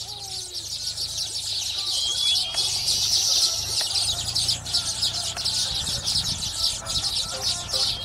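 Baya weavers at a nesting colony chattering together: a dense, continuous chorus of high, buzzy chirps, with a brief whistled note about two seconds in.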